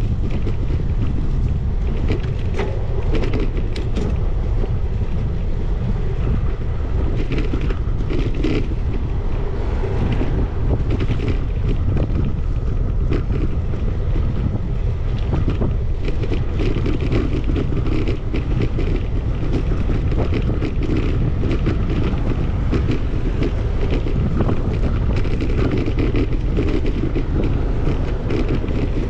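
Wind rushing over the microphone of a camera on a moving bicycle: a steady low rumble with scattered short clicks.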